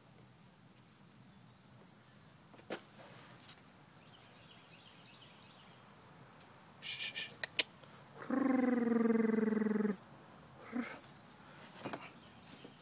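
A quick run of sharp clicks, then one drawn-out call from a voice, steady in pitch and about a second and a half long, the loudest sound here, followed by a few soft clicks.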